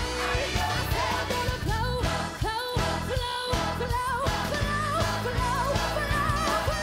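Live praise band playing upbeat worship music: drums and bass keep a steady beat under a wavering singing melody.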